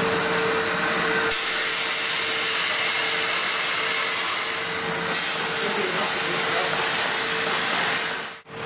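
ESAB Translas 3020 laser welding system running: a steady hiss with a steady mid-pitched hum under it. It drops out briefly just before the end.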